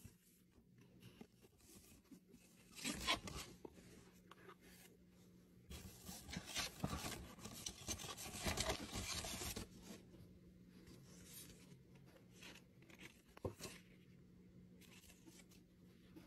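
Faint handling of a stiff paper shopping bag and a small cardboard gift box: a brief rustle about three seconds in, a longer stretch of paper rustling and scraping from about six to ten seconds in, and a single tap near the end, over a low steady hum.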